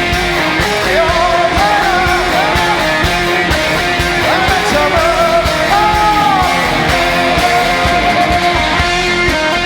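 Rock song with guitars, a steady drum beat and a gliding sung or lead melody line.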